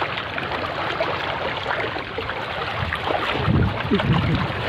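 Wind buffeting the microphone over choppy seawater splashing and lapping around concrete pilings, with a few louder surges near the end.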